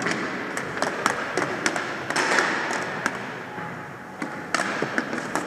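Floor hockey sticks tapping and clacking irregularly against the hardwood floor, the ball and each other as players battle for the ball.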